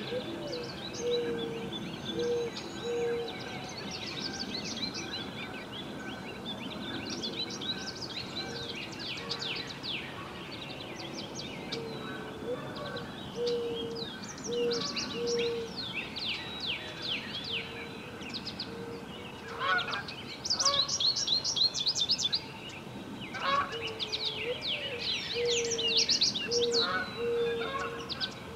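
Several songbirds singing and chirping together in rapid, overlapping phrases, louder in the last third. Under them, a low hooting call of four or five notes comes three times, each series opening with a short rising note.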